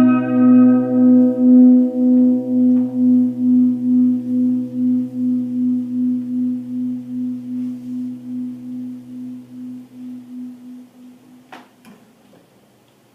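A single low ringing note, left over from a struck resonant instrument, slowly dying away over about eleven seconds with a steady wobble about twice a second. A sharp click sounds near the end.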